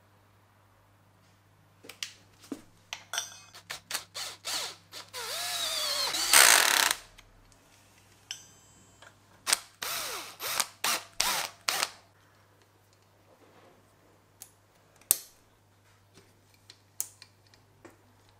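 Tool work on a bike's disc brake caliper mount: a string of sharp clicks and knocks, then a small power driver running for about two seconds with its pitch wavering as it drives a bolt, then more rapid clicks and a few lone clicks near the end.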